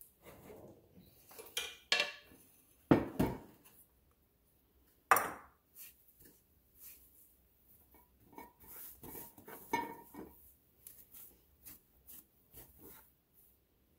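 A few sharp knocks as a bowl of flour is set down and handled on a glass-top stove, the loudest about five seconds in, then softer rustling and patting as floured hands work a large mound of bread dough.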